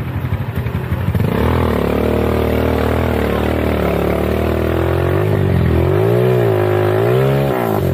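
ATV engine revving hard under load as it churns through mud, its pitch swinging up and down several times before dropping back near the end.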